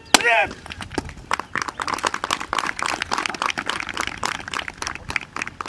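A sledgehammer cracks down on a stone slab resting on a man's stomach, with a short shout right at the blow. About a second later a crowd breaks into clapping for several seconds, which fades near the end.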